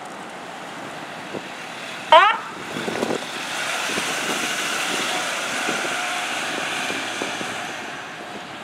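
A single short siren whoop rising sharply in pitch about two seconds in, then a fire department squad truck driving past, its engine and road noise swelling for several seconds and fading near the end.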